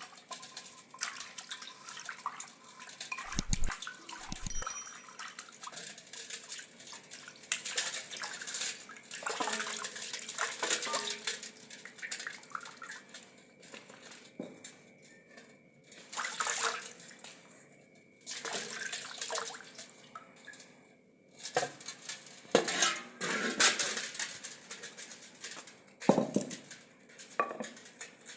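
A kunda, a mortar for pounding chutney, being washed and scrubbed with water: irregular splashing and pouring with knocks and scrapes against the vessel.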